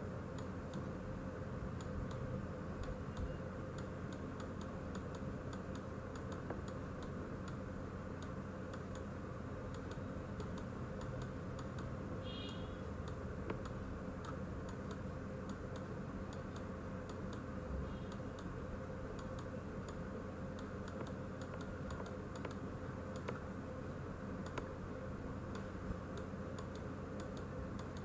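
Light, irregular clicking from computer input devices, scattered all through, over a steady low electrical hum.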